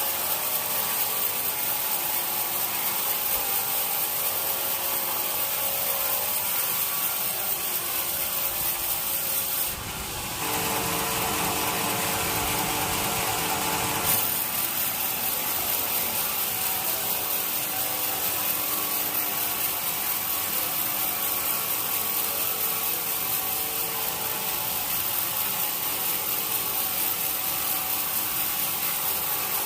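Sawmill saw cutting through an old teak log with a steady, hissing noise. About ten seconds in the sound dips briefly and changes tone for a few seconds before settling back.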